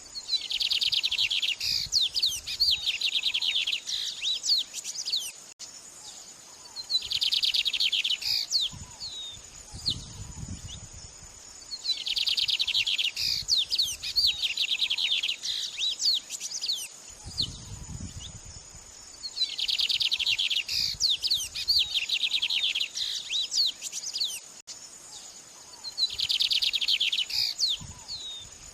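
A songbird singing: rapid, high trilled phrases about a second and a half long, repeated every five to six seconds, with short chirps between them, over a steady high insect-like drone. A few low thumps sound in between.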